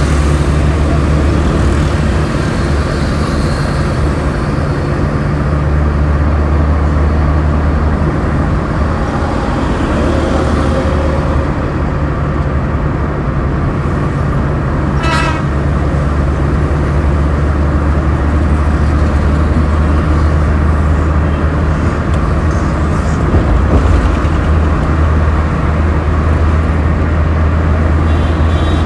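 Steady low drone of road traffic and a running vehicle engine, with a brief horn toot about halfway through.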